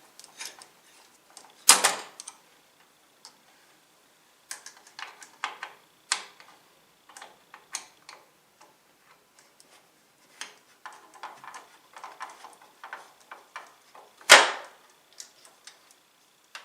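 Small scattered metallic clicks and ticks of a screwdriver working the screws of a CPU cooler loose. There are two louder knocks, about two seconds in and again near the end.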